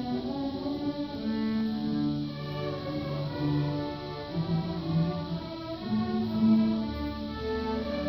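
Middle school string orchestra, violins among them, playing a piece: held bowed notes in several parts that change every half second to a second, over a low bass line.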